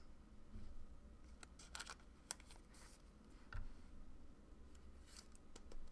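Faint, scattered clicks and short rustles of trading cards and plastic card sleeves being handled.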